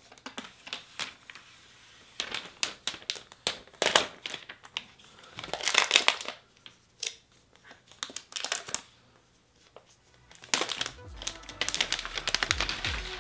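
Packaging crinkling and rustling as it is unwrapped by hand, with bursts of crackles and small clicks, the loudest in the middle and near the end.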